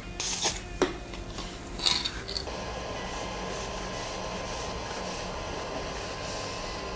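A short hiss of aerosol white lithium PTFE grease sprayed through a straw onto a 3D printer's Z-axis linear rail, then a microfiber cloth rubbing the rail. About two and a half seconds in, a steady even hum with a faint high tone sets in and holds.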